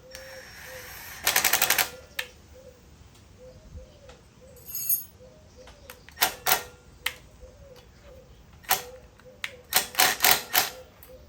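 Hand tools working on a small engine: a run of rapid clicking about a second in and another near the end, like a ratchet being worked, with single sharp metallic clicks in between.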